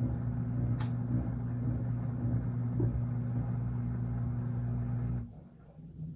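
Washing machine motor running with a steady hum, then cutting off abruptly about five seconds in, leaving a few faint clicks and rattles from the drum.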